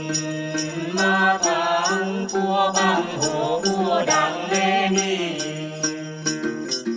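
Tày then singing: men's voices singing a slow, wavering melody to plucked đàn tính lutes, with even jingling strokes about two or three times a second keeping the beat.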